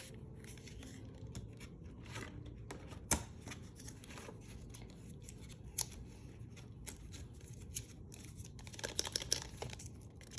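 Cosmetic packaging being handled and opened by hand: faint rustling and scraping with scattered small clicks, a sharper click about 3 s in and another near 6 s, and a cluster of rustling near the end.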